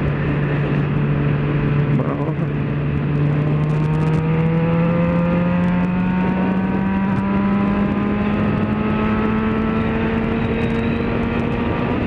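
Yamaha XJ6 motorcycle's inline-four engine running at road speed, its note climbing slowly and evenly as the revs rise, over a steady rushing noise.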